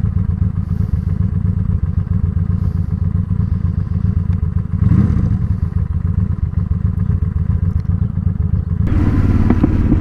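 Honda Shadow Spirit 750 V-twin idling through Cobra Streetrod Slashdown exhaust pipes, a low, pulsing, uneven rumble with a brief swell about halfway. Near the end a louder rush joins in along with a few sharp pops. The owner ties the popping to a carburettor that needs tuning.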